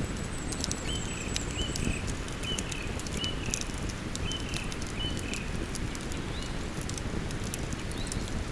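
Campfire crackling and popping in irregular sharp snaps over the steady rush of a river. A bird chirps in short repeated notes through the first half.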